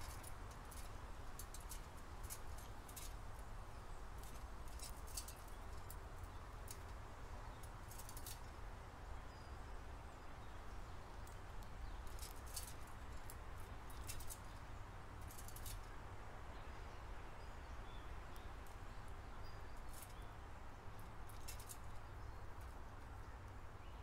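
Common grackles pecking and cracking seed at a metal-capped tube bird feeder: sharp ticks and clicks in irregular clusters, over a steady low background rumble.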